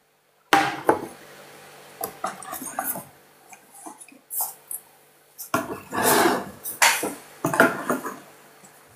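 Close rustling and knocking handling noises: a series of sudden noisy bursts as a person shifts about near the microphone, the loudest run coming in the second half.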